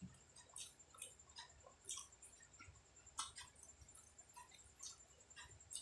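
A person chewing food close to the microphone: faint, irregular wet mouth clicks and smacks, with a sharper click about three seconds in.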